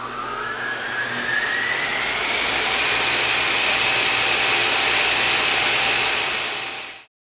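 A machine's motor spinning up: a whine rising steadily in pitch over a rushing, airy noise, levelling off at a high steady pitch as it gets louder, then cutting off abruptly near the end.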